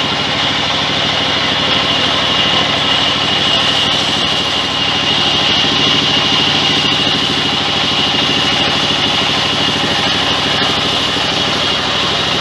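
Sawmill band saw running steadily: a constant engine-like drone with a high, even whine over it.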